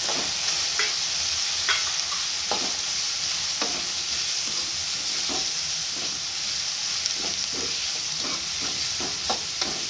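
Onion, tomato, raw mango and ground spices frying in oil in a metal kadhai with a steady sizzle. A metal spoon stirs them, scraping and clinking against the pan at irregular intervals, more often near the end.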